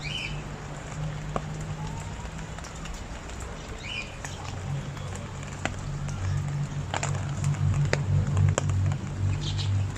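Steady rain falling, with scattered sharp drips ticking on a hard surface, more of them in the second half, over a low steady rumble.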